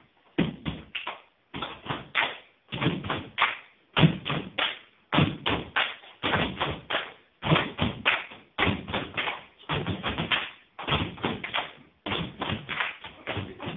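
Children's feet stamping and stepping on a hard floor while they dance: clusters of thumps and taps coming in bursts about a second long, with short breaks in between.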